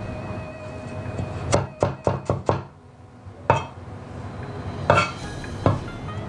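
Stainless cleaver chopping on a wooden cutting board, slicing shallots. A quick run of five chops comes about a second and a half in, followed by single chops spaced a second or so apart.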